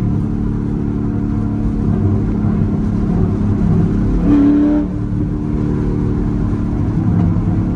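Straight-piped C7 Corvette Grand Sport's 6.2 L LT1 V8 exhaust droning steadily at highway cruise, with road and wind noise from the open roof; the note swells briefly about four seconds in.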